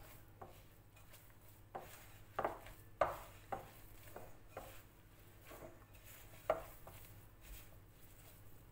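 A hand kneading crumbly cookie dough in a glass bowl, working in freshly added flour: soft squishes and knocks against the glass at uneven intervals, the sharpest about three seconds in and again past six seconds.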